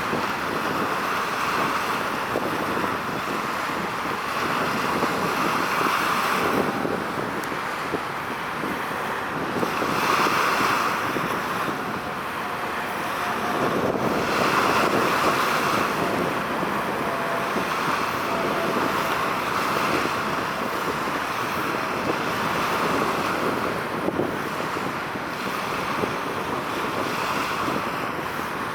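Wind rushing on the microphone over the sound of the sea, swelling and easing every few seconds, with a faint steady hum underneath.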